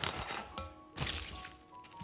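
Plastic cling film crinkling and crackling as it is stretched and pressed over a glass bowl, in two short spells, one at the start and one about a second in. Background music plays underneath.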